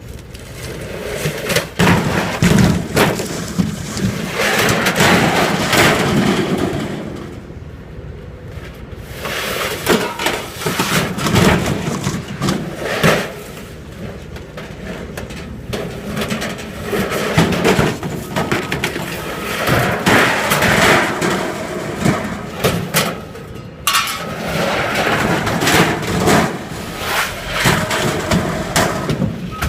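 Scrap metal crashing and clattering: a long run of irregular loud impacts and scraping bangs.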